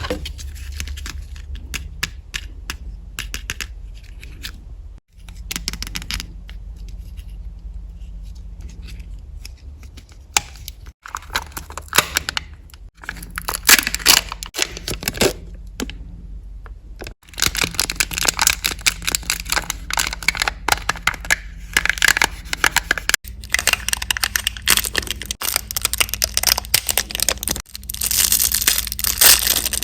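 Packaging being torn open and crinkled by hand: dense crackling, tearing and scraping in irregular bursts, broken by several sudden cuts.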